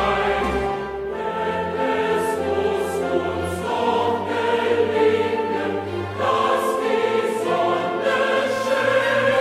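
Film score music: a choir singing long held notes over an orchestra.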